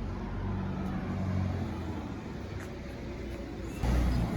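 Car engine and road noise: a steady low drone that swells louder briefly near the end.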